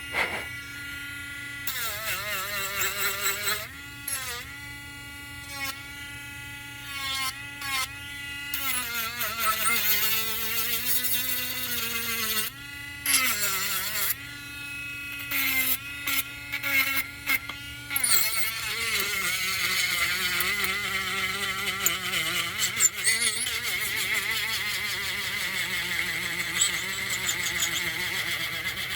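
Electric power sander running, its motor whine dipping and rising in pitch as it bears on the surface and cutting out briefly several times. In the second half it settles into a steadier rasping hiss of sanding.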